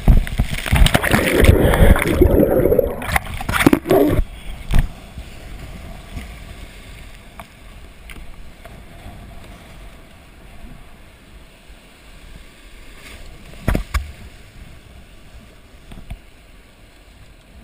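Breaking surf whitewater crashing and splashing over a sea kayak's bow for the first four seconds or so, then the quieter steady hiss and gurgle of foamy water around the hull. A single sharp knock about fourteen seconds in.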